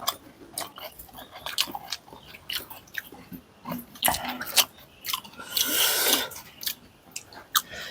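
Crisp panipuri shells being chewed close to the microphone: a run of short crunches. About two thirds of the way through comes a longer breathy hiss.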